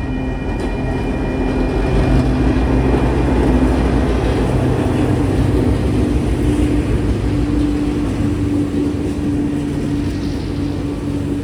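TasRail diesel locomotives passing with their train: a steady low engine drone with a rumbling, pulsing bass, loudest about two to four seconds in and then slowly easing.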